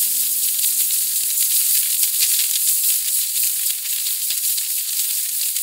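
Steady, even high-pitched hissing like sizzling, with the tail of background music fading out in the first second and a half.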